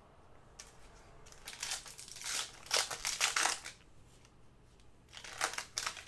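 Crinkling and rustling of plastic trading-card packaging being handled, in several irregular bouts with short pauses between them.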